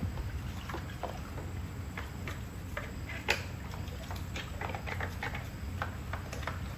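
Irregular light clicks and taps of small parts and tools being handled during a repair, over a low steady hum, with one sharper click about three seconds in.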